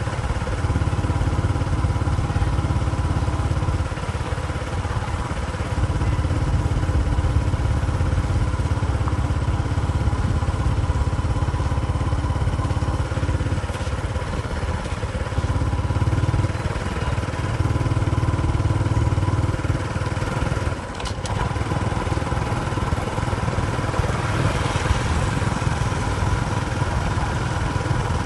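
A vehicle engine running steadily, with a continuous low rumble, dipping briefly about two-thirds of the way through.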